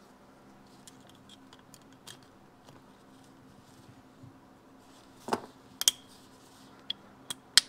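Steel motorcycle transmission parts and snap ring pliers being handled on a workbench: faint light ticks, then a few sharp metallic clicks from about five seconds in, the loudest near the end.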